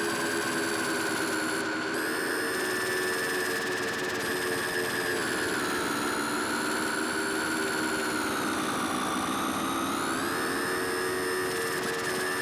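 Electronic noise drone from small synthesizers: several sustained tones over a hiss, their pitches gliding slowly down from about five seconds in and back up near ten seconds.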